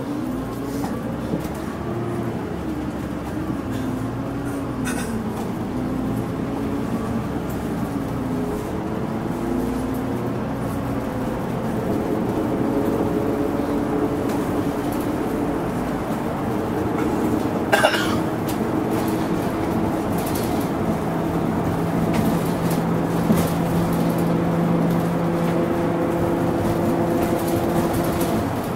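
Running sound inside a Mitsubishi Aerostar one-step city bus. The engine and drivetrain pitch climbs as the bus pulls away and gathers speed, then holds steady at a cruise. A single sharp knock sounds about two-thirds of the way through.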